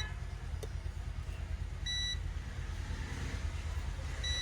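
Multimeter continuity beeps as the probes touch capacitors on a phone motherboard, checked for a short: one short high beep about two seconds in and another starting near the end, with a small click under a second in. A steady low hum runs underneath.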